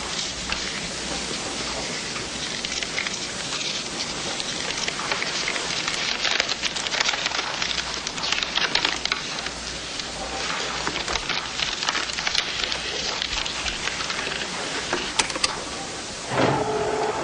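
Paper or wrapper crinkling and crackling, on and off, loud against the otherwise quiet room, with a short pitched sound starting near the end.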